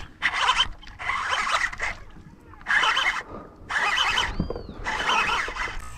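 Fishing reel whirring in five short spurts as the angler cranks in a hooked fish.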